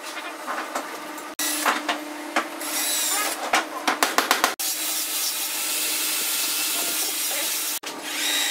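Pencil scratching on a wooden block as lines are drawn along an acrylic angle square and steel ruler, with the square sliding and clicking against the wood, over a faint steady hum. Partway through, a steady rasping noise runs for about three seconds and cuts off abruptly.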